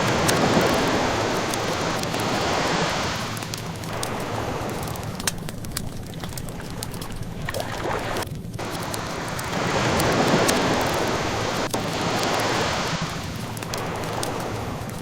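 Ocean waves washing in, two slow swells, one at the start and another building about nine seconds in, with the light crackle of a burning wood fire over them.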